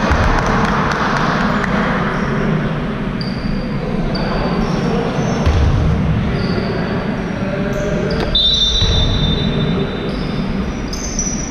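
Basketball game sounds: the ball bouncing on the court floor, with several short, high squeaks of sneakers.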